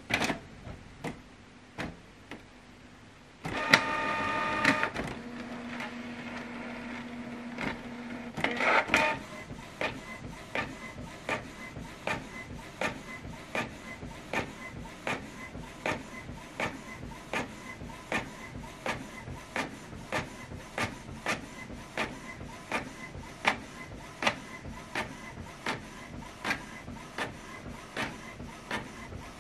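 Canon PIXMA MG3650 inkjet printer printing a page. A few clicks, then a loud whirring as it starts up and pulls in the paper, then the print head shuttling back and forth with a regular click at each pass.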